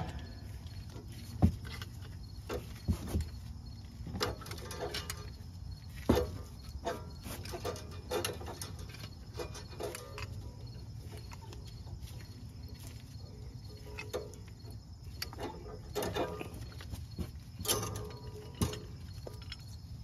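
Scattered clicks and light metallic knocks from a C-clamp being screwed down against an old brake pad to push a front brake caliper piston back into its bore, with the clamp and pad handled and taken off near the end. A steady low hum sits underneath.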